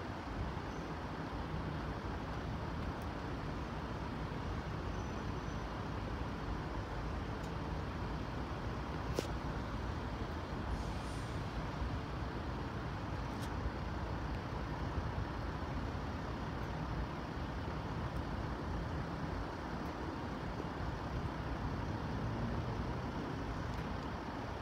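Steady road-traffic noise at a closed level crossing, with a single sharp click about nine seconds in.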